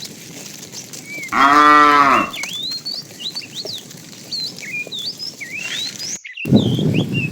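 A cow moos once, about a second and a half in: a short call that rises and then falls in pitch. High chirping continues in the background, and a brief rough low sound comes near the end.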